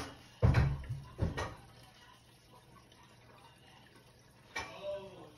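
Water sloshing and gurgling in a toilet bowl around the rubber head of a Milwaukee air drain gun pressed into the drain, with dull thumps twice about a second in and again near the end.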